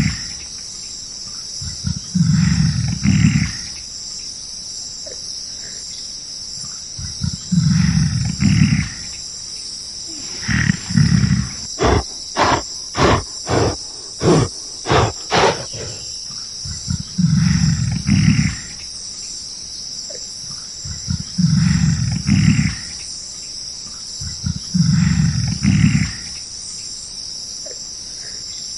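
A large animal's deep, roar-like calls, each about a second long and repeated every few seconds, with a run of about eight short grunts at about two a second midway through. Insects buzz steadily throughout.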